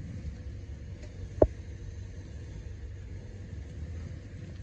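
Kubota L2050 compact tractor's diesel engine idling with a steady low rumble. One sharp click about a second and a half in.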